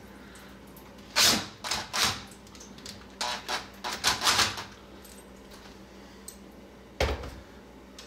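Cordless drill driving the screw of a hose clamp on a faucet adapter in several short bursts, then a single sharp knock about seven seconds in.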